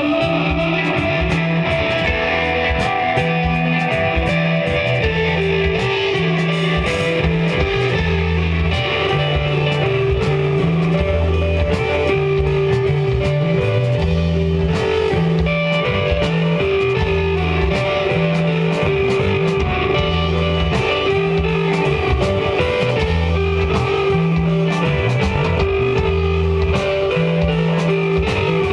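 Live instrumental desert rock jam: electric guitar over a bass line of long held notes in a repeating pattern, with drum kit and cymbals keeping time.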